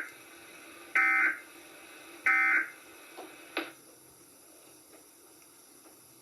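Emergency Alert System end-of-message data tones: short, harsh two-tone digital buzzes repeating about every 1.3 s, the end of one right at the start and two more after it, marking the close of the alert. A couple of faint clicks follow, then only a low background hum.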